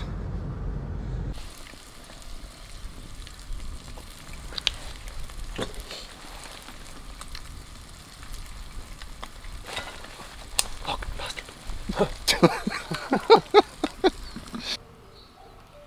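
Wood campfire crackling with scattered sharp pops over a soft hiss. A low car-cabin rumble runs for about the first second and a half; near the end, a quick run of short pitched squeaks, the loudest sounds here, rises over the crackle before it cuts off.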